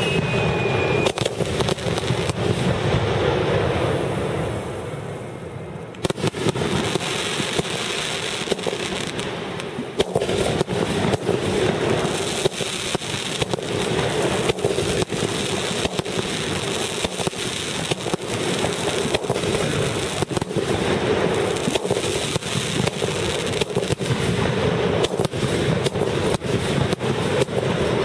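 Aerial fireworks going off in rapid succession: a dense barrage of bangs and crackling bursts, with a falling whistle at the very start. The bangs ease off about four seconds in, then resume with a sharp bang about six seconds in and keep up thickly.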